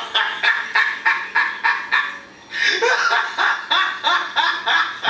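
A person laughing hard in two long runs of rapid pulses, about five a second, with a short breath between them about halfway through.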